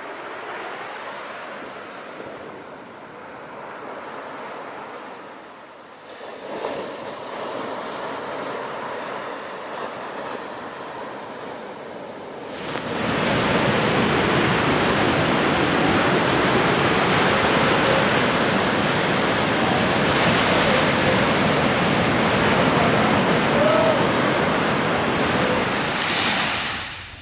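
Sea surf: waves washing on the shore, softer and swelling for the first dozen seconds. Then comes a much louder rushing wash of breaking surf that lasts about fourteen seconds and drops off sharply near the end.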